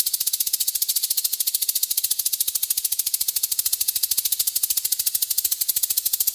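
Snake sound effect: a fast, even, high-pitched buzzing rattle that keeps up steadily and begins to fade near the end.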